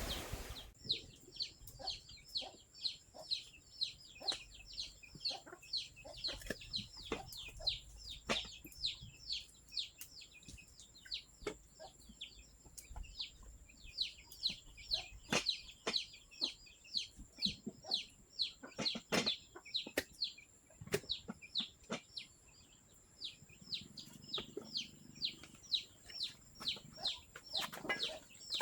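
Chickens: a rapid run of short high peeps, about three a second, pausing briefly twice, with scattered lower clucks and clicks, over a steady faint high-pitched whine.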